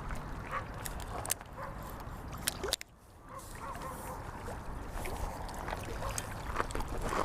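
Wind rumbling on the microphone, with scattered short clicks and light splashing as a small bass is reeled in. It goes briefly quieter about three seconds in.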